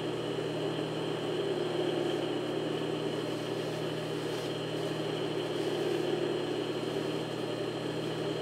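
Singer industrial sewing machine's electric motor running, a steady hum with no stitching rhythm.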